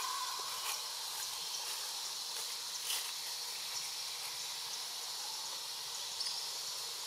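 Outdoor ambience: a steady high-pitched hiss with a few faint clicks scattered through it.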